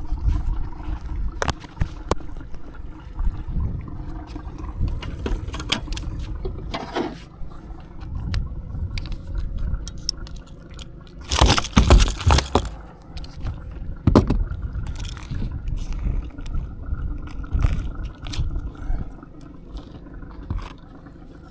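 Irregular knocks, scrapes and rattles of a freshly landed barramundi being handled and unhooked in a boat, with a louder scuffle about twelve seconds in, over a steady low rumble of wind on the microphone.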